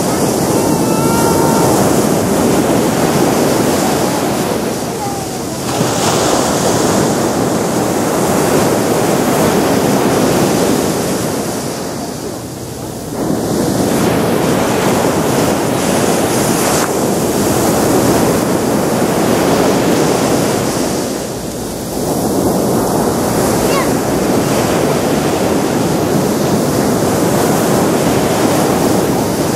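Pacific Ocean surf breaking on a sandy beach: a steady rush of waves that swells and falls back, easing briefly about every eight seconds.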